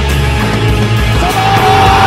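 Loud background music, dense and continuous with a pulsing low end; a long held note comes in a little past halfway.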